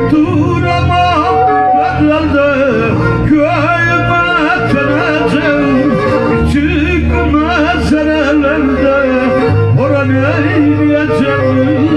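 A Black Sea kemençe bowed with a steady drone under a man singing a Black Sea folk türkü in a bending, ornamented voice. Low held bass notes sit underneath and change twice.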